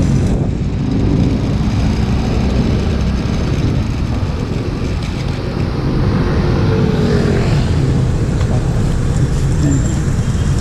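Motorcycle riding in city traffic: its engine running steadily under wind and road noise, with the engines of other vehicles close by.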